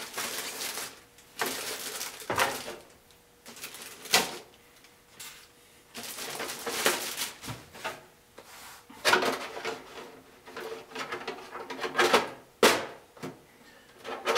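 Clear plastic wrapping crinkling and rustling in irregular bursts as it is pulled off a plastic RC truck body shell by hand. Near the end comes handling of the hard plastic shell as it is set onto the chassis.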